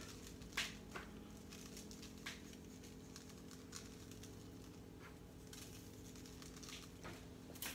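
Faint, scattered soft taps and pats of hands pressing and turning pieces of raw short rib on a cutting board, over a low steady hum.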